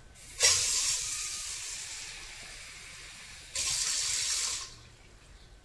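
Water running from a tap in two spells: a long rush that starts suddenly about half a second in and slowly fades, then a shorter one near the end that stops abruptly.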